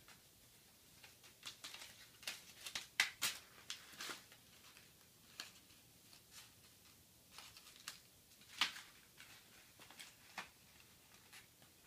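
Faint, irregular crinkling and light clicking of a crumpled paper ball being batted and bitten by a kitten, a scatter of short rustles with the loudest one about eight and a half seconds in.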